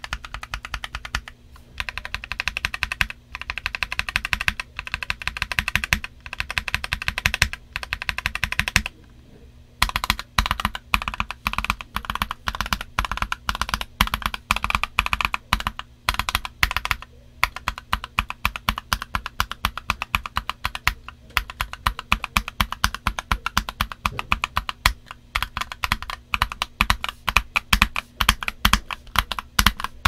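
Typing on a Hello Ganss HS75T mechanical keyboard with Silver Linear switches and DS PBT Cherry Awaken keycaps: a fast, steady run of keystrokes, with a short break about nine seconds in.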